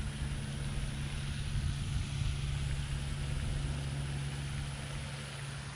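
An engine or motor running steadily with an even low hum.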